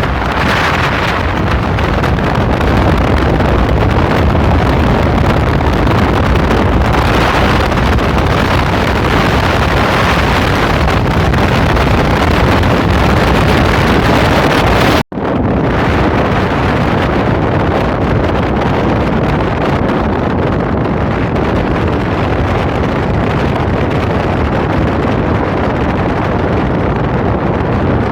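Loud, steady wind rush and road noise from a moving vehicle, buffeting the microphone. It cuts out abruptly for an instant about halfway through, then carries on slightly duller.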